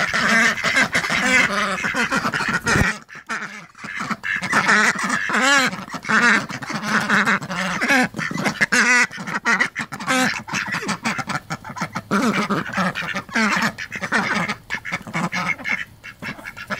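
A flock of domestic ducks, Indian Runners, Khaki Campbells and Buff Orpingtons, quacking and chattering almost without pause, many calls overlapping, with a brief lull about three seconds in.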